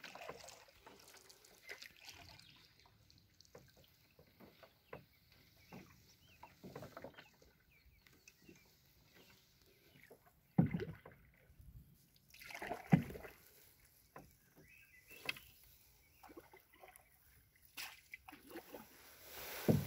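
Quiet canoe paddling: faint water drips and small splashes from the paddle, scattered irregularly. A few louder thumps come a little past halfway, again about two seconds later, and near the end.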